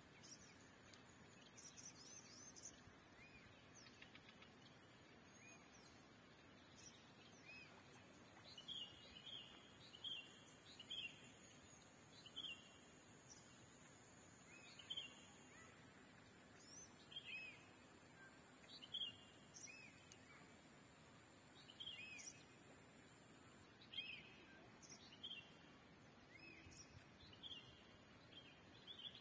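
Faint bird calls: short chirps in little clusters, repeating every second or two and becoming more frequent after the first several seconds, over a quiet outdoor hiss with a faint steady high-pitched tone.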